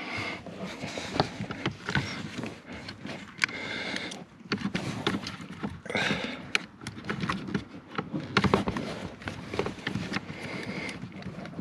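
Irregular clicks, knocks and scraping of hands working plastic trim and an electrical connector under a car's dashboard, mixed with rustling from the camera being handled.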